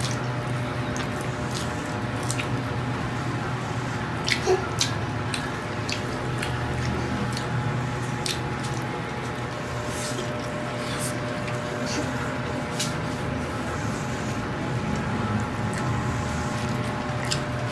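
People eating a meal of rice and stir-fried pork intestine: chewing and scattered clicks of utensils on plates, over a steady low background hum. A few louder clicks come about four to five seconds in.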